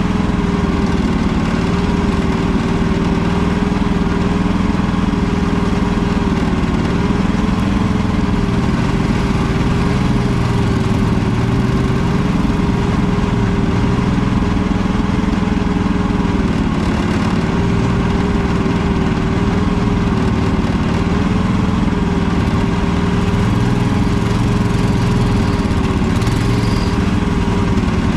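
Mini excavator engine running steadily while the machine digs, its pitch wavering slightly now and then.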